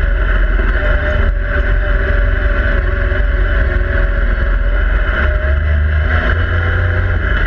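Yamaha YXZ1000R side-by-side's three-cylinder engine running steadily under way, heard from inside the cab as a loud, constant low rumble whose pitch wavers slightly with the throttle.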